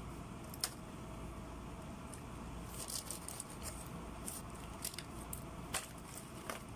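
Fingers tearing fried chicken and picking through fries in an aluminium foil takeaway tray: scattered small clicks and crinkles, one sharper click about half a second in and a cluster around three seconds. A steady low hum lies underneath.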